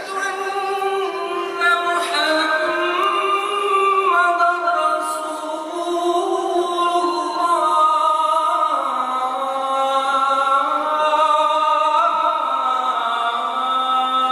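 The adhan, the Islamic call to prayer: one voice chanting long, drawn-out, ornamented phrases, the notes held and wavering, settling lower about nine seconds in.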